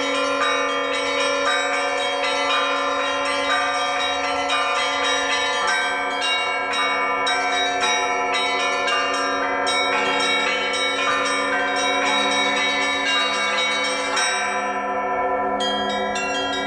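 A set of Russian church bells cast by the LITEX foundry, rung by hand in a full peal. Small bells keep up a quick, dense chiming over the steady ringing of the middle and larger bells. The high bells fall silent for about a second near the end, then come back in.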